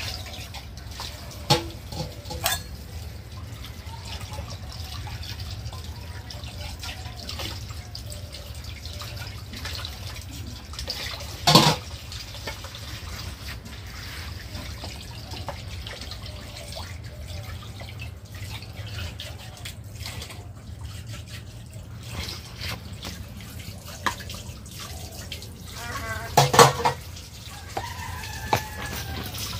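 Water running from a tap into a basin while dishes are washed by hand, with steel pots and bowls knocking together a few times; the loudest clatter comes about twelve seconds in, with another cluster of knocks near the end.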